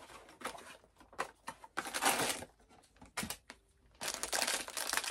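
Cardboard biscuit box being torn open and its foil-wrapped pack handled: scattered rustles and tearing, then dense crinkling of the foil wrapper from about four seconds in.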